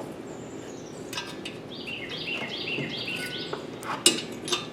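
A songbird sings a quick run of repeated whistled notes in the background, while small metal tools and parts clink sharply a few times; the loudest clink comes about four seconds in.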